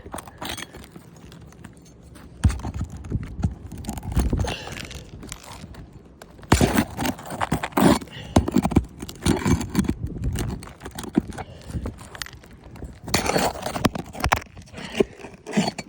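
Irregular knocks and scrapes of a pry tool working roofing fasteners loose from under a shingle.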